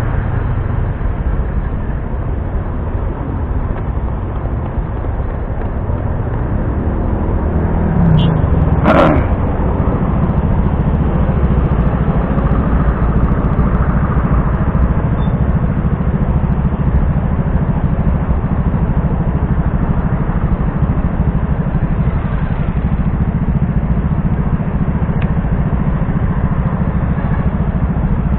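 Motor scooter engine idling steadily while stopped at a traffic light, with traffic around it. A single brief loud sound cuts through about nine seconds in.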